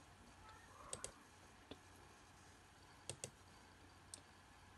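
Faint computer clicks over near-silent room tone: a quick double click about a second in, a single click, another double click about three seconds in, and one more click near the end.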